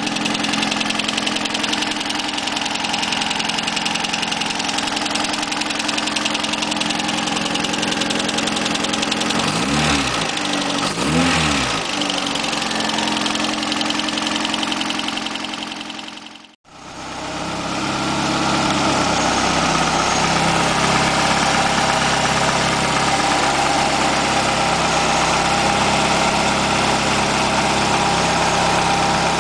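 1989 Ford Escort GT's freshly rebuilt 1.9-litre four-cylinder engine idling steadily on its first run, blipped twice in quick succession about ten seconds in. The sound drops out for an instant a little past halfway, then the idle carries on.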